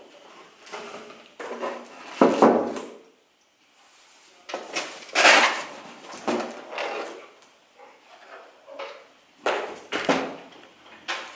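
Cardboard packaging and a hard plastic sewing-machine cover being handled and lifted out of a box: irregular scrapes, rustles and knocks, the loudest about two and five seconds in.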